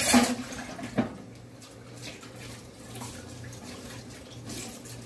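Water running from a kitchen tap, with one sharp knock about a second in.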